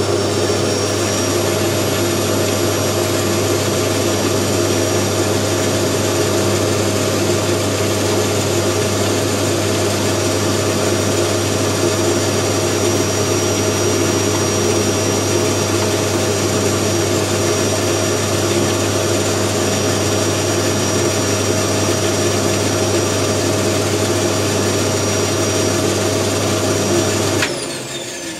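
Band saw running steadily after a blade change, with a strong motor hum and a high steady whine. It is switched off near the end, and the pitch falls as the wheels coast down.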